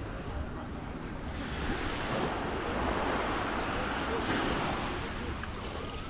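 Sea waves washing onto the beach: one surge of surf builds from about a second and a half in, peaks midway and dies away near the end, with wind rumbling on the microphone.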